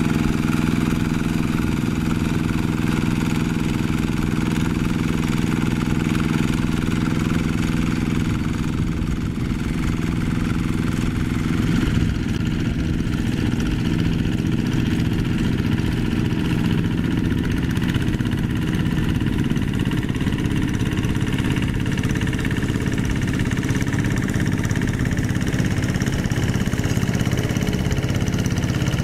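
Two-wheel hand tractor's single-cylinder diesel engine running steadily under load as it pulls a tiller through wet paddy mud.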